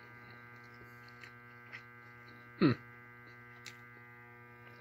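Steady electrical mains-type hum, with a few faint light clicks. About two and a half seconds in comes one short, louder sound that slides down in pitch.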